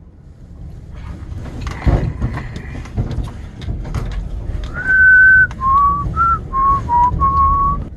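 A person whistling a few notes of a tune: one higher held note, then a run of short lower notes. Under it, rumbling handling noise with scattered clicks.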